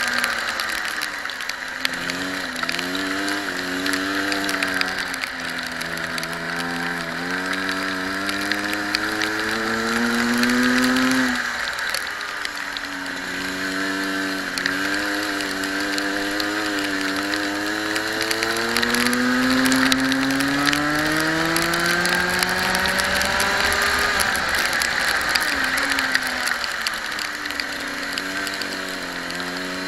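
Racing kart engine under throttle, its pitch climbing steadily as the kart accelerates, then falling sharply when the throttle is lifted, about 11 seconds in and again around 24 seconds, before climbing once more.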